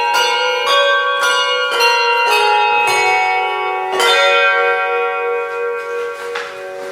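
Handbells played by a team of ringers, a carol tune of struck, ringing notes about every half second. A last chord is struck about four seconds in and left to ring, fading away.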